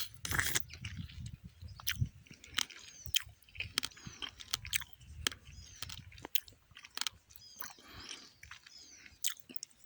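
Wet mouth clicks, smacks and chewing of someone sucking on an umbu fruit close to the microphone, with birds chirping faintly in the background.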